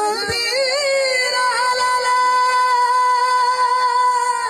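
A high solo voice singing without accompaniment: a few quick ornamented turns, then one long note held steady.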